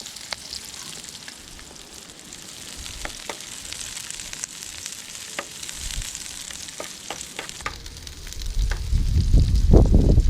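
Seasonings frying in hot oil in a pan: a steady sizzling hiss with scattered crackling pops as the oil is flavoured. About two seconds from the end a loud low rumble comes in and covers the sizzle.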